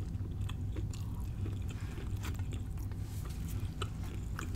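Close-up mouth sounds of someone chewing a bite of fried empanada: soft, irregular wet clicks and smacks over a steady low hum.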